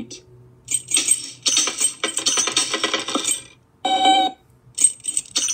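A pile of Halloween candy poured out, clattering as many small hard pieces land for about three seconds, played as a cartoon sound effect through computer speakers. A short pitched beep follows about four seconds in, then a few light clicks.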